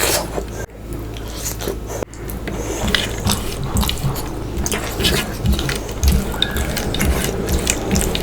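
Close-miked wet chewing and mouth sounds of eating fish curry and rice: a rapid string of small moist clicks and smacks with soft low thumps.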